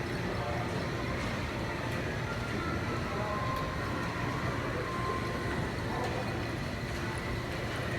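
Steady low rumble of a train in an underground railroad station, with no distinct knocks or announcements.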